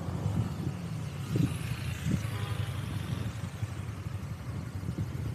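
Motor scooter engine running with a steady low rumble, with a few brief louder bumps and a faint rising and fading hiss about two seconds in.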